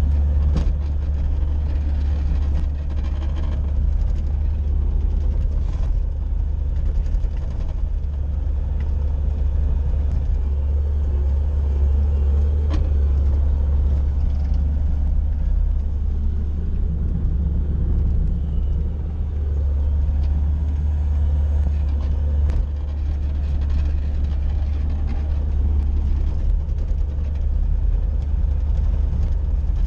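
Bobcat skid-steer loader's diesel engine running steadily as a low, even drone while pushing snow, with a few faint knocks.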